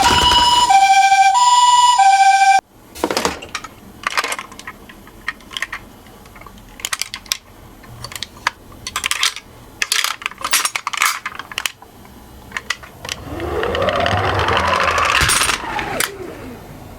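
Toy ambulance's electronic hi-lo siren alternating between two tones, cutting off abruptly about two and a half seconds in. Scattered small hard clicks and clacks follow. Near the end comes a louder whir of about three seconds whose pitch rises and then falls.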